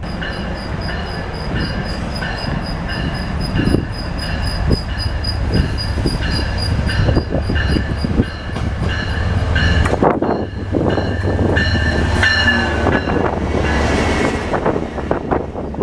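MBTA train passing, with a steady rumble and clicks from the wheels on the rails. A pulsing high tone runs through the first two-thirds and fades about ten seconds in. Wind noise buffets the microphone.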